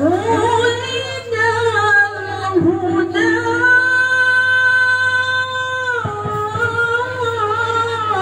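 A girl sings solo into a microphone over a sound system, holding long wavering notes with no drumming. The longest note runs for about three seconds in the middle, and a steady low hum sits underneath.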